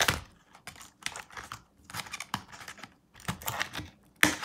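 Scissors snipping through the twist ties that hold a toy figure in a cardboard tray, with the tray being handled: a run of irregular sharp clicks and snips, the loudest about four seconds in.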